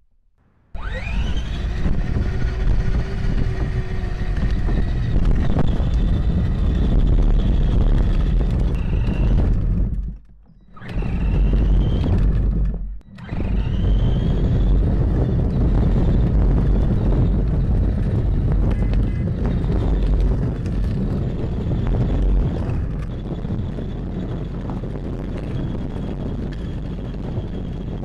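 Children's electric ride-on toy Tesla Model S driving on asphalt: a steady rumble and rattle from its wheels and drive, heard through a camera mounted on the toy's hood. It breaks off briefly twice, about 10 and 13 seconds in.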